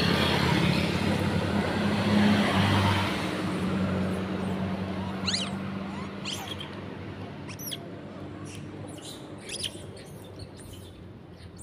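A vehicle engine hums loudly and fades steadily away over the first several seconds. From about five seconds in come short high squeaks and chirps every second or two.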